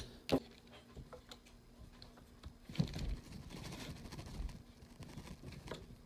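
Hose fittings being handled on a tabletop. There is a sharp click about a third of a second in, then faint rubbing and small taps from about halfway through as a fitting is pushed toward the pump.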